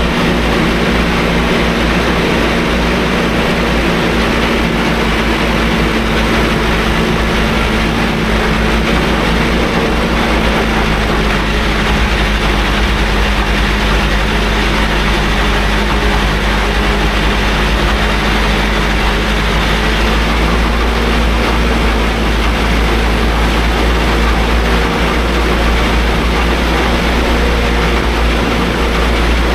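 Tractor engine running steadily under load.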